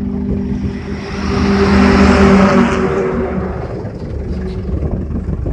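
Tractor engine running a mounted auger drill, with a steady hum. A louder rush of noise swells about a second in and eases off after about three seconds, as the engine takes load.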